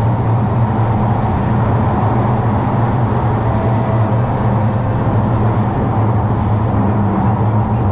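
Singapore MRT train running: a loud, steady rumble with a strong low hum and no breaks.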